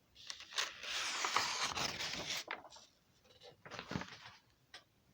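A soft rustling scrape lasting about a second and a half, followed by fainter short rustles near the end.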